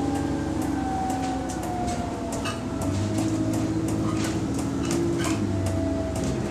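A bus's diesel engine running under way, heard from inside the bus, with a whine that slowly falls in pitch. Over it come many sharp, irregular clicks and rattles; the owner describes this clicking as moving with engine revs.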